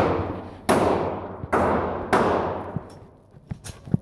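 Glock 19 9mm pistol fired three times with steel-cased ammunition, the last two shots close together. Each shot rings out in a long echo in the indoor range. A few light clicks follow near the end.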